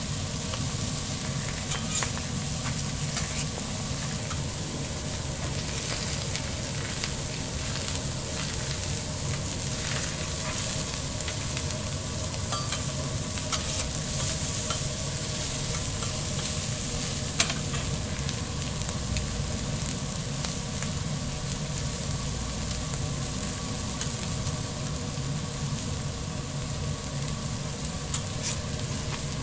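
Eggs, sausage, meat and flaky flatbreads sizzling steadily on a steel flat-top griddle. A metal spatula scrapes and clicks against the plate now and then, with one sharp clack a little past halfway.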